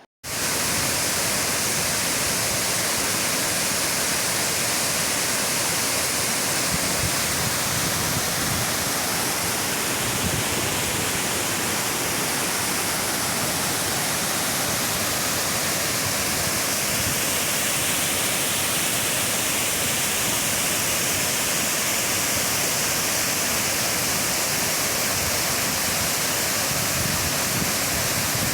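Waterfall: a steady, loud rush of falling water that cuts in abruptly at the start.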